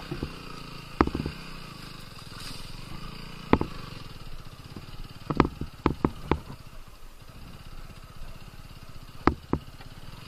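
TVS Apache RTR 200 4V's single-cylinder engine running steadily at low revs while the bike is ridden over a rough dirt trail. Sharp knocks and rattles come from the bike jolting over bumps: one about a second in, another a few seconds later, a quick cluster of three around the middle, and two close together near the end.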